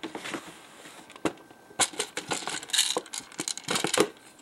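A quick, irregular run of clicks, knocks and rattles from small hard objects being handled, with the loudest knocks near the end.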